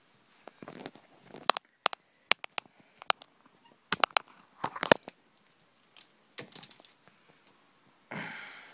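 Handling noise: irregular sharp clicks, some in quick pairs, with rustling as the phone is moved about, and a short rush of noise near the end.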